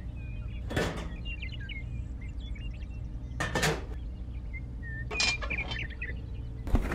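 Light clinks and clatter of small hard objects, with brief noisy scraping bursts, over a low steady hum; a louder clatter comes near the end.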